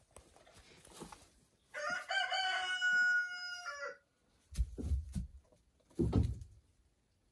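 A rooster crowing once, a single drawn-out call of about two seconds that drops at the end. A few low thuds follow near the end.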